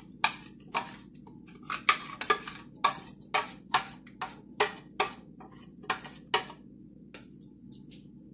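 A metal spoon knocking and scraping against a plastic blender jar and a stainless steel bowl while thick ground masala paste is scraped out. It makes a run of sharp taps about half a second apart that grow fainter and sparser near the end.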